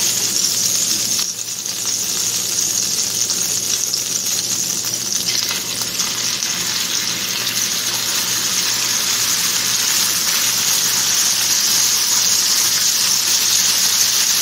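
Breakfast steak searing in hot oil and butter in a skillet: a steady sizzle that dips briefly about a second in and then carries on.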